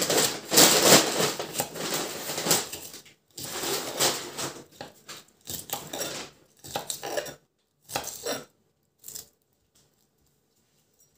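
Kitchen knife slicing lettuce leaves on a wooden cutting board: crisp crunching cuts with the blade knocking on the board. The cutting is dense at first, turns into separate strokes, and stops about nine seconds in.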